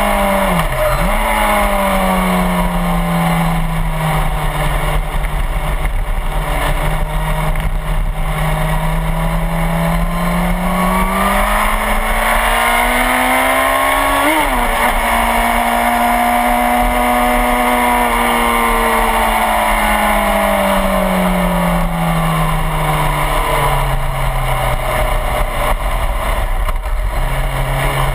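Suzuki GSX-R1000's inline-four engine on track, its revs slowly climbing and falling through the lap, with quick sharp drops in pitch at gear changes about a second in and about halfway. Heavy wind rush on the tail-mounted camera runs under it.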